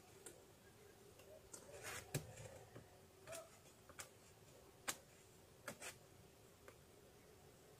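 Faint scattered knocks and clicks of wooden hive frames being lifted and shifted inside a beehive, the sharpest a little after two seconds in and another near five seconds.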